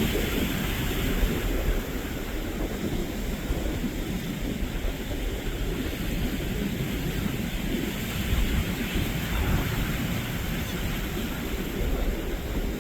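Wind buffeting the microphone over the steady wash of surf, with a fluctuating low rumble.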